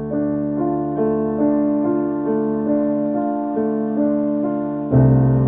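Background piano music: a slow run of held notes that change about once a second, with a fuller, deeper chord coming in near the end.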